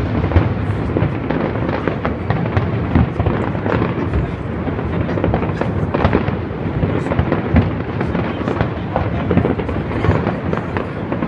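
Large fireworks display: shells bursting in a dense, continuous run of booms and crackles with no let-up.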